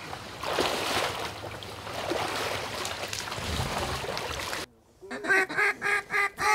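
Water sloshing and splashing as hunters wade in flooded timber, broken off abruptly about four and a half seconds in. Then a run of loud, evenly spaced mallard quacks, about three a second, fading toward the end in the descending series of a hen mallard's call.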